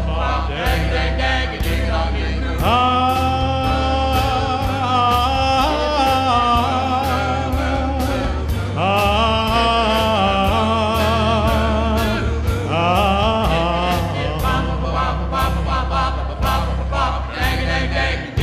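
Male doo-wop vocal group singing long, wordless held harmonies over an accompaniment with a steady beat and bass.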